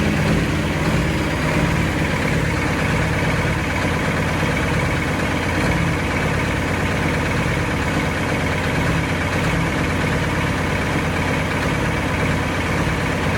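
A pulling tractor's large engine running steadily at an even speed, without revving up or down.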